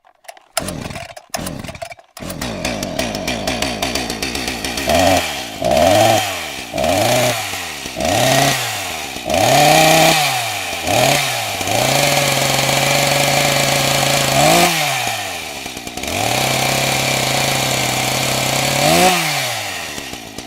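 Chainsaw engine catching with a few short bursts and settling to idle, then revved repeatedly in quick blips about once a second. It is twice held at high revs for a few seconds, with a rev between, and drops back toward idle near the end.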